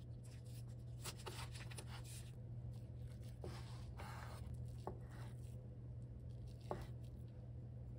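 Chef's knife cutting green onions and imitation crab sticks on a wooden cutting board: a handful of separate short cuts, each a quick slice with a light knock of the blade on the wood, over a low steady hum.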